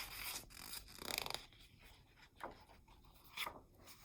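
A picture book's paper page being turned: soft rubbing and scraping, strongest about a second in, followed by a few faint taps.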